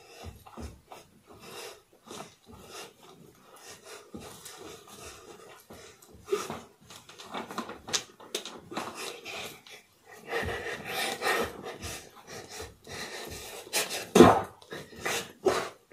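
A child dancing on a floor: irregular footfalls and thumps with clothes rustling and hard breathing, busier in the second half, with the loudest thump about fourteen seconds in.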